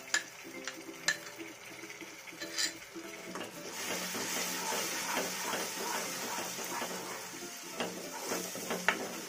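Several sharp knocks of a wooden spatula against the bowl and pan as a wet turmeric, ajwain and dry-ginger paste is scraped into poppy seeds frying in ghee. From about three and a half seconds in, a steady sizzle as the paste fries, with the spatula stirring and scraping across the nonstick kadhai.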